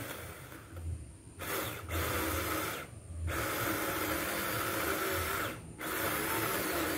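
Bull 4-inch cordless mini chainsaw cutting into a thick water-apple tree trunk. It runs in spurts and stops briefly around three seconds in and again just before six seconds.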